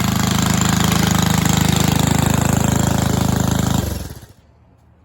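The 1961 Cooper Klipper reel mower's 2.5 horsepower Briggs and Stratton single-cylinder engine running steadily, then shut off a little under four seconds in and dying away within half a second.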